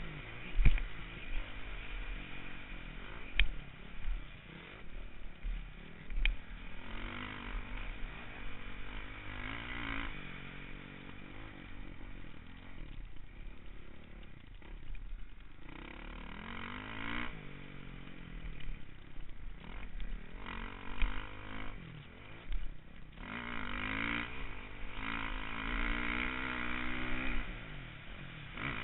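Dirt bike engine heard up close from the bike itself, revving up and dropping back again and again as the rider accelerates and shifts, with low wind rumble on the microphone and a few sharp jolts early on.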